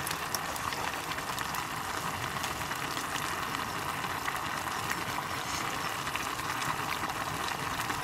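A cooking pot boiling on an open wood fire: a steady bubbling hiss with faint scattered pops.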